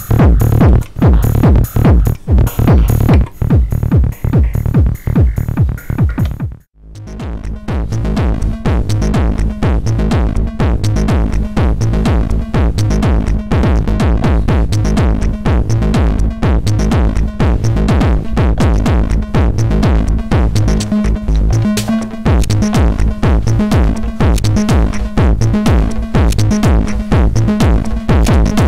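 Techno drum-machine pattern from a Korg Electribe ESX, played through an Etek Optima compressor/limiter: a steady driving beat with bright hi-hats. About six and a half seconds in the pattern stops abruptly, and a different pattern with a pulsing bass line comes in and swells back up to full level.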